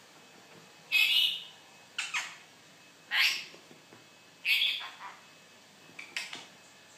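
Rainbow lorikeet giving a series of short, harsh squawks, about one a second.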